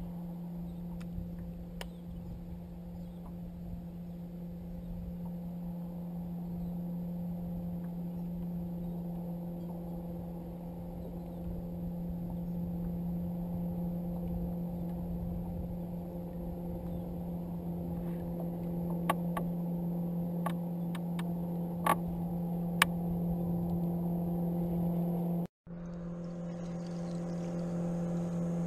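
A steady low hum from a small motor, with a faint high whine above it. A few sharp clicks come in the second half. The sound drops out briefly near the end.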